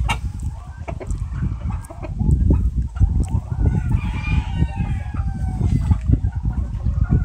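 White-crested Dutch chickens clucking, with a longer drawn-out call from about three and a half seconds in, over a steady low rumble.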